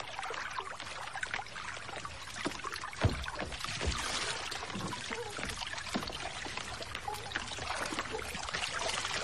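Water lapping and splashing against a small moored rowing boat and the rocks beside it, with a dull thump about three seconds in as a man steps down into the boat.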